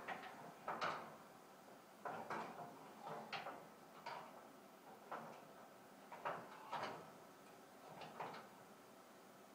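Scattered light clicks and knocks of metal parts being handled and fitted inside a server rack, about nine short taps spaced irregularly.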